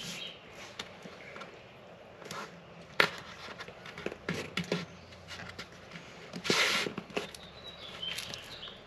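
Handling noise from a glued PWC traction mat being positioned and pressed onto the jet ski's fiberglass footwell: scattered light taps and clicks, with a brief rustle about six and a half seconds in.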